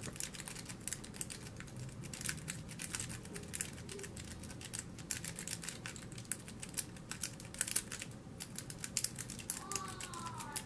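Sparrows Worm rake scraping and clicking in a Fortress padlock's keyway as it is raked back and forth against the pin stacks: a fast, irregular run of small metal clicks. The lock is resisting and has not yet opened.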